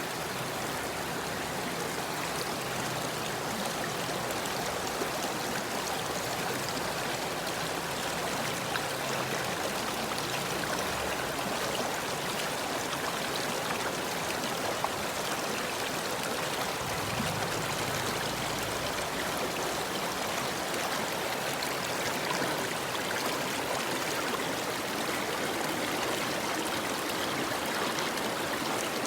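River water flowing over rocks: a steady, even rushing with small splashes and no pauses.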